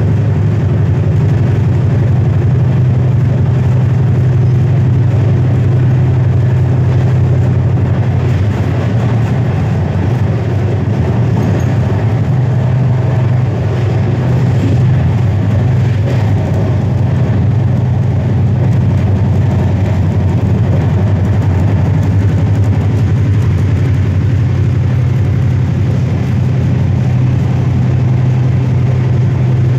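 Steady low rumble of the 22538 Kushinagar Superfast Express running at speed, heard from inside a passenger coach: wheels on rails and the coach's running noise.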